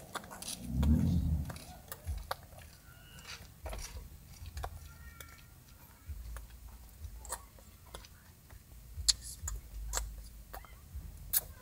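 Soft, scattered taps and clicks of hands striking and brushing against each other and the body while signing in ASL, with a short low hum of a voice about a second in.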